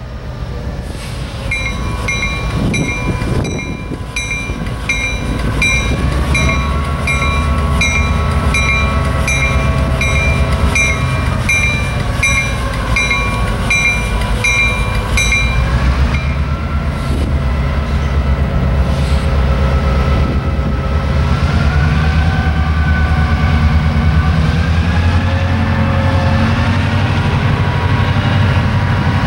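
Diesel freight locomotives working a train, a heavy low engine rumble with a whine that slowly rises and falls in pitch. A bell rings steadily, about one and a half strokes a second, and stops about halfway through.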